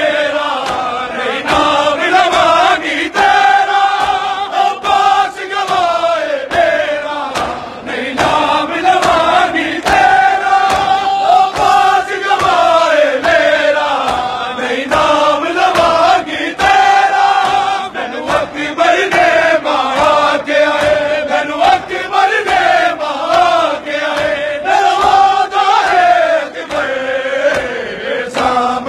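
A large crowd of men chanting a noha in unison, a held melody repeated in phrases, over a steady rhythm of hand slaps from matam, the ritual chest-beating of Shia mourning.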